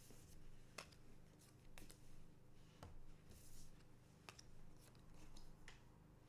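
Faint handling of trading cards and packs: a few sharp little clicks and short rustles over a low steady room hum.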